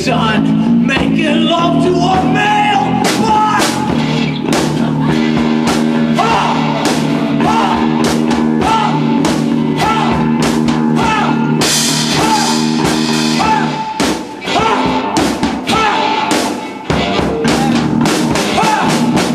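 Live rock band playing, with drum kit and guitar, in an instrumental stretch of a punk/grunge song; the sound drops briefly twice in the second half.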